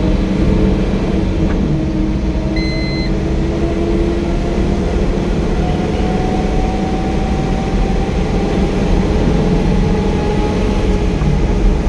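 Car cabin noise while driving on a highway: steady engine and tyre rumble, the engine note slowly rising as the car gathers speed. A short, high electronic beep sounds once, about two and a half seconds in.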